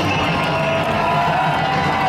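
Large stadium crowd cheering and shouting, mixed with music, as a steady loud wash of many voices.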